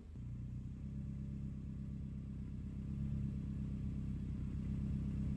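Honda K20A inline-four engine idling steadily through its new custom exhaust.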